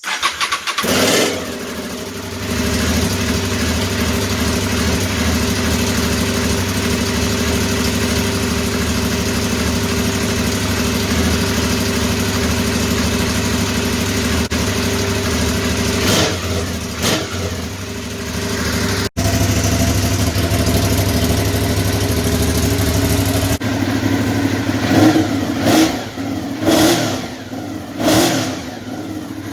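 2009 Aprilia Shiver 750's V-twin engine running steadily at idle through its twin exhausts. It is blipped twice a little past the middle and revved several times in quick succession near the end.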